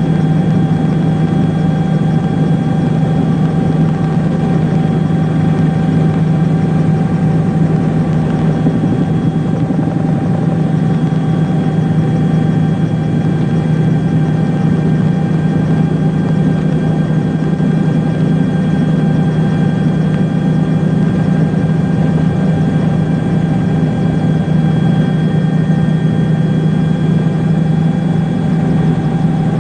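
A steady engine drone at constant speed, with a strong low hum and several steady higher tones above it, unchanging throughout.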